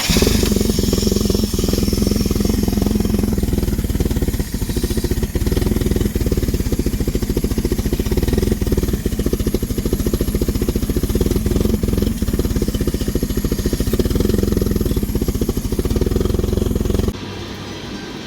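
Engine of a roughly 1975 Toyota forklift running steadily with a fast, even firing beat. The sound drops abruptly to a lower level near the end.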